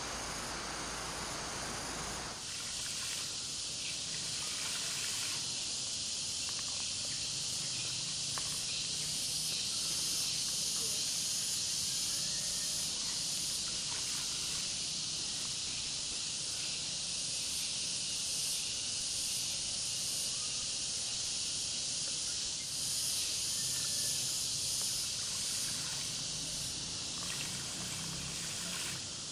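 Steady high-pitched insect drone, a dense unbroken hiss of the kind cicadas make in tropical forest. It sets in about two seconds in and holds without change.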